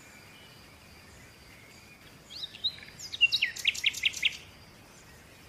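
Domestic chicken chicks peeping: a quick run of high, downward-sliding peeps lasting about two seconds, beginning a little over two seconds in.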